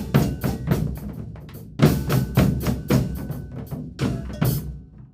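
Percussion group of drums playing a coco virado rhythm, with loud accented strokes in clusters; the playing stops shortly before the end.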